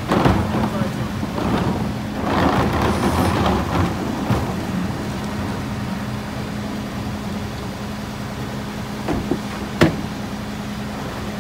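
Rear loader garbage truck's engine idling steadily. Over it there is a bang at the start and a couple of seconds of clattering as carts and trash are tipped into the hopper, then a single sharp knock near the end.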